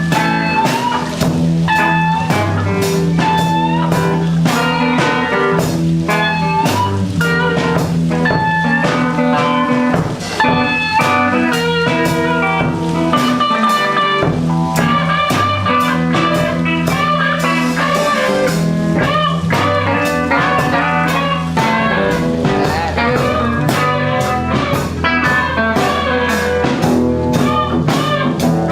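Blues-rock jam: guitar lines over held bass notes and a steady drum-kit beat.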